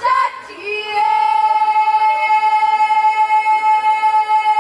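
Female voice singing a Punjabi Gidda folk song, holding one long, steady note from about a second in.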